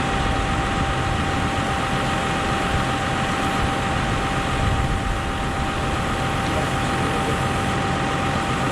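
Tractor engine running steadily at a constant speed, with a steady high whine above it.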